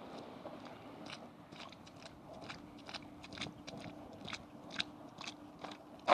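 Muck Boot Woody Pro rubber boots stepping through puddles: a run of short, wet, crunching footsteps, about three a second, with a louder step at the very end.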